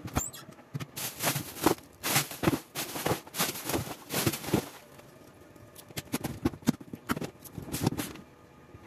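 Large clear plastic bag rustling and crinkling in irregular bursts as it is handled, along with a cardboard box being opened and worked, with a brief lull about five seconds in.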